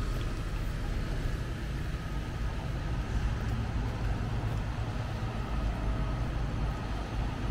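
Rainy street ambience: a steady low rumble with a fainter hiss above it, and no single event standing out.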